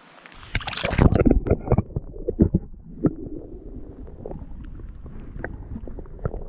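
Creek water heard through a submerged camera: a muffled, gurgling rumble with irregular clicks and knocks, busiest and loudest in the first two seconds, then steadier.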